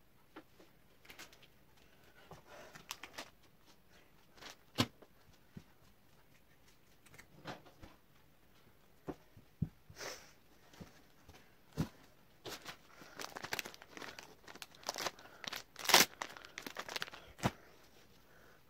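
Scattered knocks, clicks and rustling as someone handles things in a small room, sparse at first and busier in the last few seconds, with one sharp louder click near the end.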